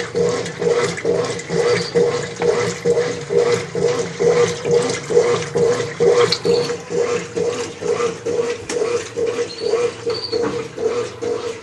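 Brastemp 5 kg top-loading washing machine agitating during the rinse of a whites load at low water level: the motor hums and the water sloshes back and forth in an even rhythm of about two strokes a second.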